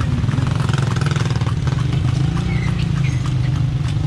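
Horse-drawn calesa rolling along a wet street, heard from on board: a steady low rumble with a fast rattle, with motorcycle tricycle engines passing close alongside.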